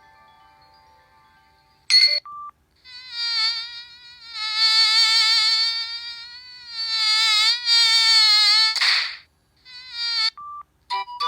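A preloaded Samsung SGH-E720 mobile phone ringtone: a buzzy, wavering high tone, broken by a few brief gaps and a sharp noisy burst near nine seconds, with short beeps near the end. The previous ringtone dies away over the first two seconds, and a sharp bright burst about two seconds in starts the new tone.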